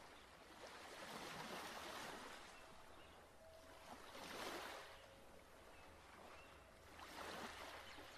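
Faint rushing of water, like gentle waves washing in, swelling and fading about every three seconds.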